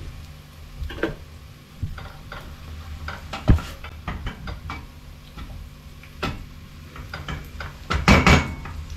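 Wooden spoon knocking and scraping against a stainless steel cooking pot as chopped tomatoes are added and stirred in, with scattered clinks and one sharp knock about three and a half seconds in. A cluster of louder scrapes and knocks comes near the end, over a steady low hum.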